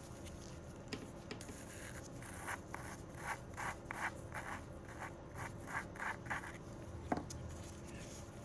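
Repeated short rubbing, scraping strokes, about two a second, of hands working a small nail-product container open, with a single click near the end.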